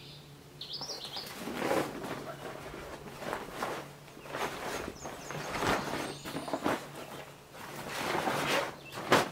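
Grill cover rustling as it is pulled off and bunched up, with scattered knocks and a sharp click near the end. A bird chirps once under a second in.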